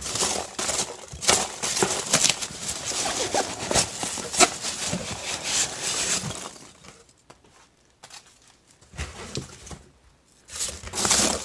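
Polystyrene packing peanuts rustling and crackling as a hand digs through them in a cardboard box, a dense run of small clicks for about six and a half seconds. It goes quieter after that, and the rustling starts again about a second before the end.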